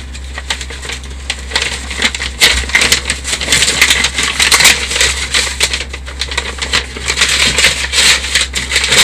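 Brown paper mailer packaging rustling and crinkling close to the microphone as it is handled and pulled open to get a box out, a dense run of small crackles.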